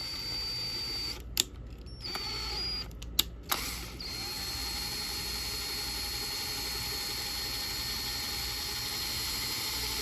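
Electric drill with a file chucked in it, spinning to open up the hole in a titanium pen's front section: a steady high motor whine, stopping and starting twice with a few sharp clicks in between, then running steadily from about four seconds in.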